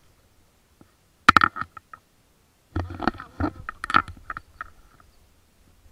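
Handling noise on an action camera's waterproof housing: sharp knocks and scrapes as the camera is turned and repositioned, a short cluster about a second in and a longer, busier one from about three seconds in.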